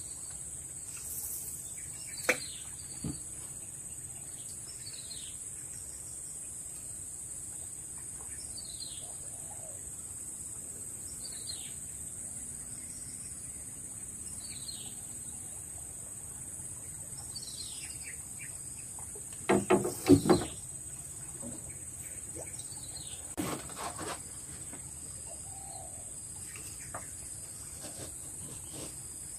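Steady high-pitched drone of insects along the riverbank, with a bird repeating a short falling call every few seconds. A quick cluster of knocks about twenty seconds in, and a fainter one a few seconds later.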